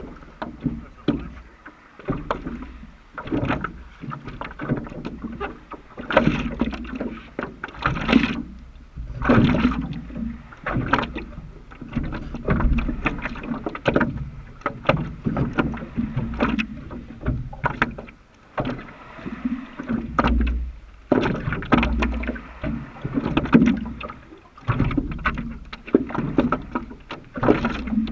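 Sea water sloshing and slapping against a paddleboard's hull close to the board-mounted camera, in irregular surges, with scattered knocks and bumps on the board and a low rumble of wind on the microphone.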